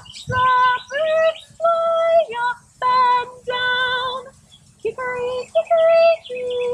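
A woman singing a simple children's circle song, in short phrases with long held notes and brief pauses between them.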